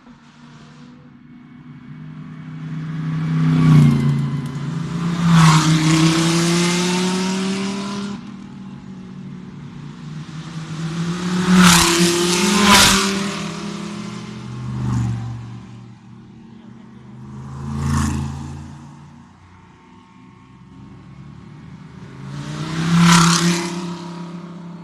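Race cars driving past one after another with their engines revving, each pass swelling to a loud peak and fading away. Several cars go by, some with the pitch climbing as they accelerate.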